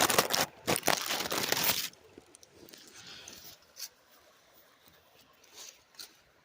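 Loud crinkling, crunching rustle for about two seconds, then much quieter with a few faint clicks.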